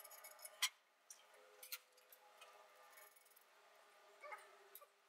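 Near silence broken by a few faint, scattered metallic clicks and ticks from hand tools being worked on an aluminium pipe.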